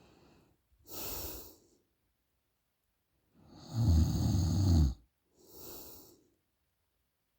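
A sleeping woman snoring: a soft breath about a second in, then one loud, low snore lasting about a second and a half, followed by a softer breath out.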